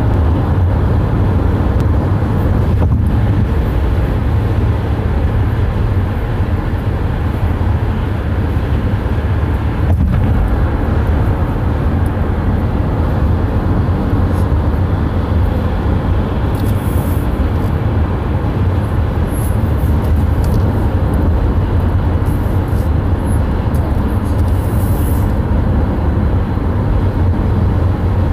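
Steady low road rumble and engine hum inside a moving car's cabin.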